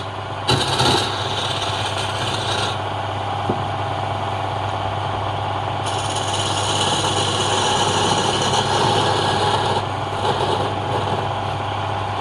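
Woodworking machine motor running steadily, with two stretches of hissing as wood is cut, one near the start and a longer one in the middle.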